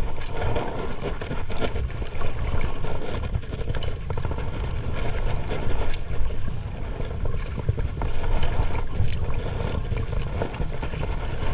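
Wind buffeting the microphone and water splashing against the hull of a small fishing boat, with scattered light knocks and clicks.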